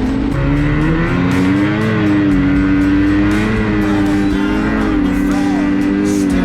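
Ski-Doo Renegade XRS 850 two-stroke snowmobile engine running under load, its pitch rising and falling as the throttle changes, with music playing over it.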